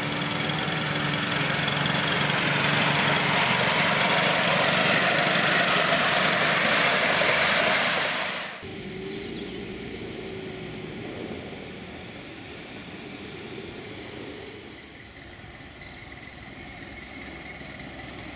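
A miniature steam locomotive hauling riders on a raised track runs towards and past, its running noise growing louder, then cuts off abruptly about eight and a half seconds in. After that comes a quieter outdoor background with a few faint high chirps.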